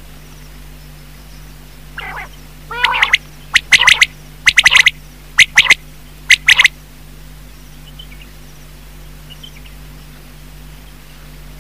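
Quail calling: a couple of softer, rougher notes about two seconds in, then loud, sharp notes in quick runs of two or three, stopping a little before seven seconds. A steady low hum runs underneath.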